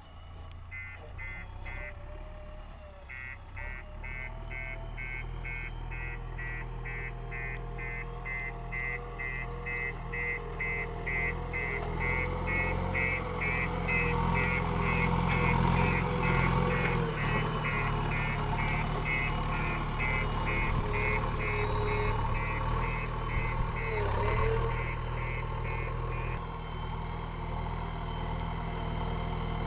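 JCB 3DX backhoe loader's diesel engine running and working, getting louder through the middle, with its reversing alarm beeping about twice a second until near the end.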